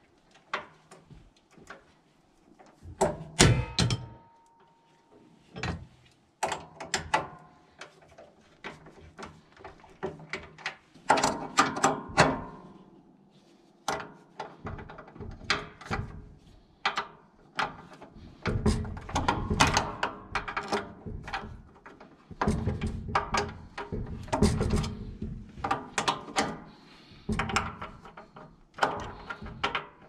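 A hand wrench working the engine-mount bolts of a sawmill: irregular metal clicks, clinks and knocks, busier in stretches, as the mounts are loosened to slacken the drive belt.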